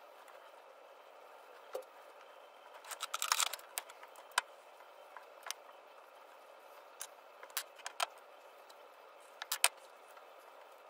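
Scattered small clicks and scrapes from hand-stitching leather, as needles, thread and the layered leather wallet are handled, over a faint steady hiss. The clicks come singly or in short runs, with a dense cluster about three seconds in.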